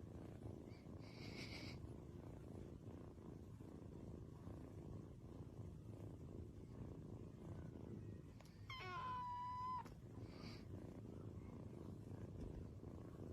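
A cat purring, a faint steady low rumble, with a short high-pitched meow about nine seconds in.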